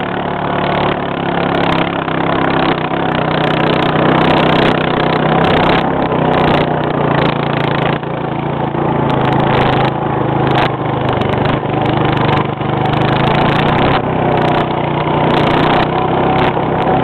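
A small engine running steadily, its pitch wavering slightly, with some scattered clicks and rattles over it.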